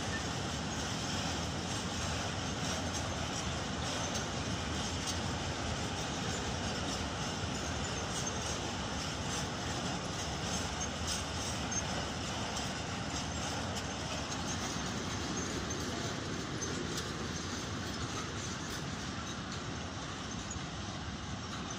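A freight train of covered wagons rolling past, its wheels running on the rails in a steady rumble, with scattered clicks over the rail joints. It fades slightly near the end.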